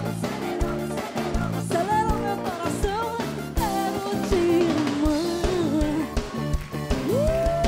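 Live band music: a drum kit keeping a steady beat with electric guitars, and a female singer's voice over it.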